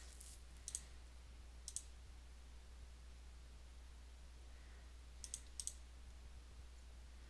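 Computer mouse clicks: two quick pairs of clicks in the first two seconds, then a run of four clicks about five seconds in, over a steady low hum.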